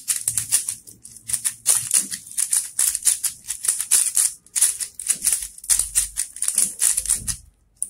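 Plastic 3x3 speed cube being turned rapidly by hand to scramble it: a dense, fast run of clicking clacks from the layer turns, stopping shortly before the end.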